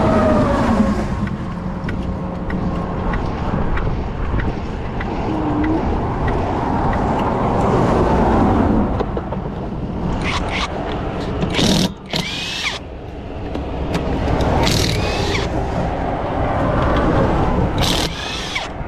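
Highway traffic passing steadily, a continuous low rumble of tyres and engines. There is a falling pitch just at the start and several short, sharp, hissing-clattering noises in the second half.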